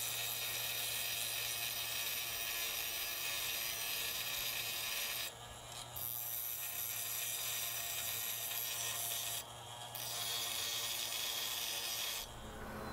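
Bench grinder grinding the sides of a 5/8-inch steel hex nut held against the wheel: three grinding passes, broken by short pauses about five and nine and a half seconds in, over the steady hum of the grinder motor, with the grinding stopping shortly before the end.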